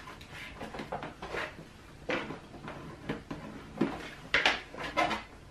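Paper being bent over a metal ruler and handled on a tabletop: a few short rustles and light knocks, the loudest pair near the end.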